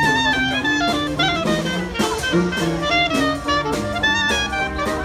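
A live jazz band playing an up-tempo number: sousaphone bass line, trombone, clarinet, saxophone and banjo over a snare drum.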